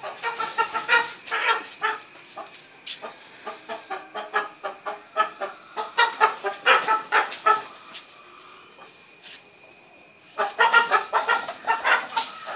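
Chickens clucking and cackling in quick runs of short calls, in three bouts with a lull of about two seconds near the end.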